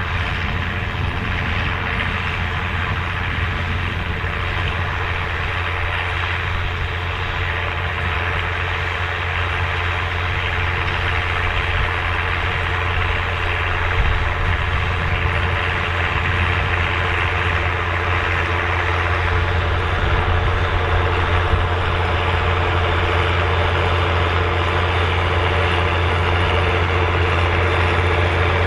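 Massey Ferguson tractor engine running steadily under load while ploughing, with a strong low hum, getting gradually a little louder.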